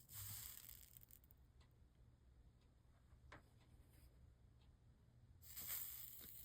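Soldering iron sizzling on fluxed lead came joints as solder melts: two short hissing bursts of about a second each, one at the start and one near the end, with a faint tick between them.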